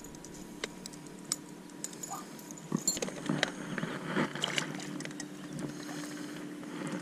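Small clicks and knocks of hands and gear against a plastic kayak hull, with soft water sounds around three to four seconds in as a northern pike is lowered back into the lake.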